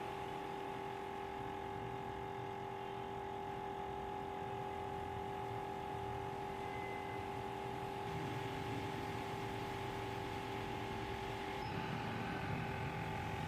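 Steady hum of a small fan motor with a whine in two steady tones; the lower tone drops out near the end.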